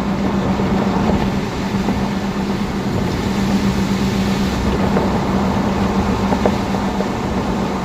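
Steady rushing noise with a constant low hum.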